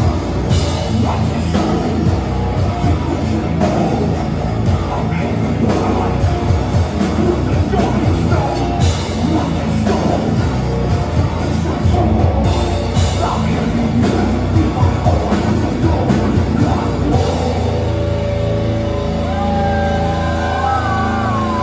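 Death metal band playing live through a club PA: pounding drum kit, heavy distorted guitars and vocals. About three-quarters of the way through, the drumming drops away and a held guitar chord rings on, with a few high sliding tones over it near the end.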